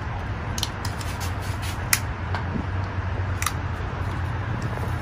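Portable butane camp stove burner hissing steadily just after being relit, with a few faint clicks.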